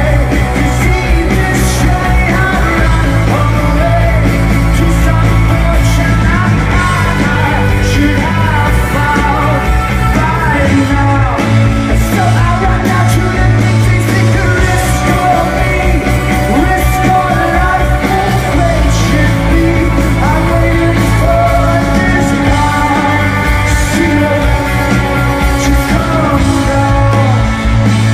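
Live rock band playing at full volume, a male lead vocalist singing over bass, guitars and drums, heard from the audience.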